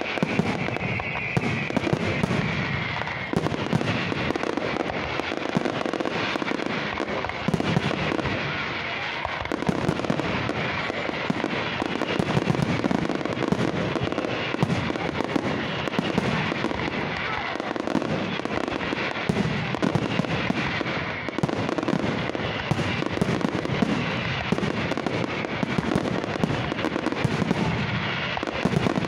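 Fireworks display: a continuous, dense barrage of shell bursts, bangs and crackling with no pause.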